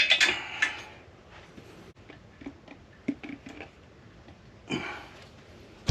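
Metal parts clattering against a Honda K24 aluminium engine block, then scattered light clicks, and a short dull knock near the end as a rubber mallet taps on the block.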